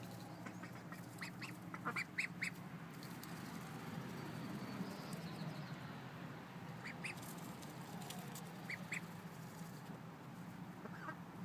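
Pekin ducklings peeping: short high chirps in small clusters, about two seconds in, again around seven seconds and near nine seconds, the contented "happy sounds" of ducklings at ease. A steady low hum runs underneath.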